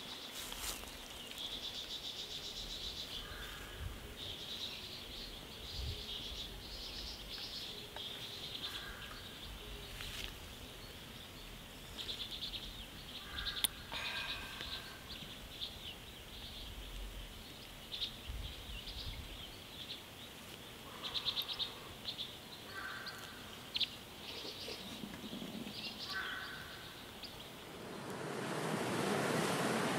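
Small birds chirping and trilling on and off over a quiet outdoor background. Near the end, the wash of ocean surf swells in and grows loud.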